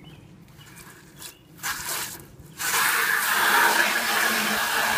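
Garden hose spray nozzle filling a plastic bucket with water: a short spurt, then from about halfway through a steady stream of water.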